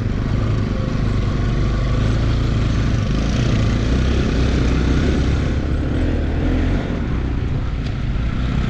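Motorcycle engine running steadily under way on a rough off-road trail, with heavy wind rumble on the microphone.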